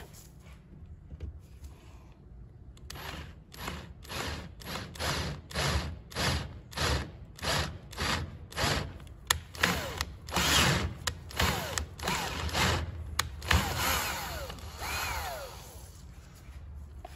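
Cordless drill turning a thread tap into a freshly drilled hole in an aluminium part, cutting the thread. The trigger is pulled in short bursts about twice a second, then held in longer runs with a rising and falling whine near the end.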